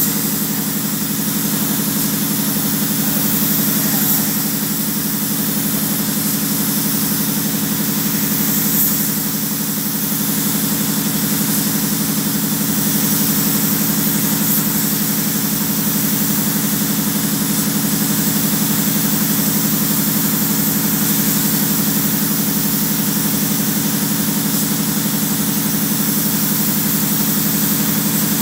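Compressed-air spray gun hissing steadily as it sprays paint, over a steady mechanical hum.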